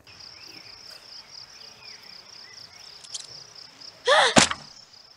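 Animated-series soundtrack: crickets chirping in a steady pulsing trill, with a short loud whoosh about four seconds in.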